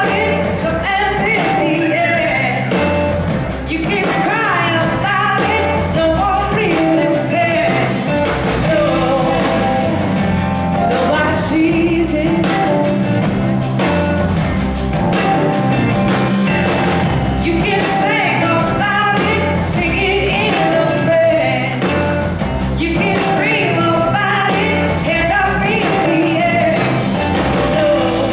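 Live rock band playing, with electric guitars, bass and drums and a woman singing lead, heard from the audience in a large hall.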